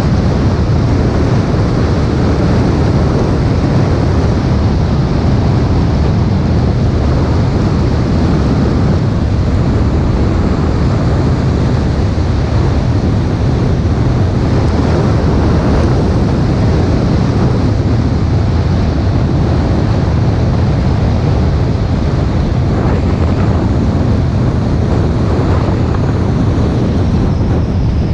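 Steady rush of wind on the microphone, mixed with tyre and road noise from a car driving at speed.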